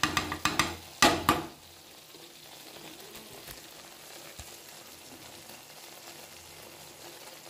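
Milk cream frying down into ghee in a pan: a steady soft sizzle. Over the first second and a half, a few quick scrapes of a metal spoon stirring it against the pan are the loudest sounds.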